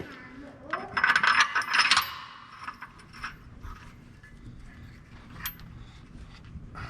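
Metal engine parts clinking and rattling as they are handled: a dense burst of rattling about a second in, then a few separate sharp clicks.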